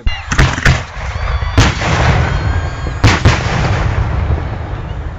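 Display fireworks fired at close range: a series of loud, sharp bangs (about five, the last two close together about three seconds in) over a continuous rumbling, crackling roar of the launches.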